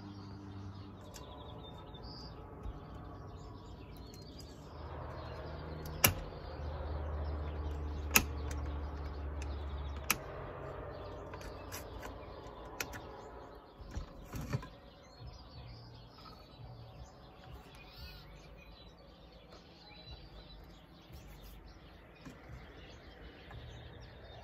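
Birds chirping against a quiet outdoor background, with a few sharp metal clicks and taps as the C-clip retainers come off and the Winegard Batwing antenna head is worked off its metal mast arm. A low rumble swells about five seconds in and fades out around ten seconds.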